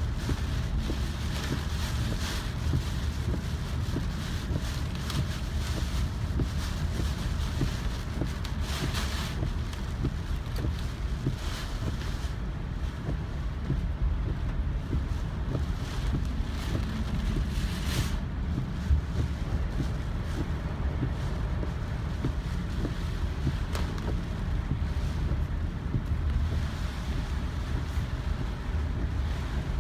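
Typhoon wind buffeting the microphone: a steady low rumble with hissing gusts that surge now and then.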